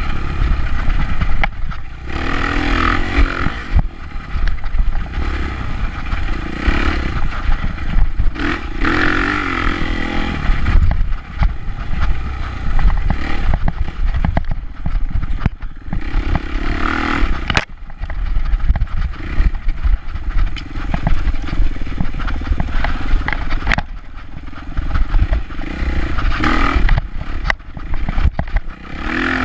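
Dirt bike engine revving up and falling back again and again as it is ridden hard along a rough trail, with rattling and clattering from the bike over bumps.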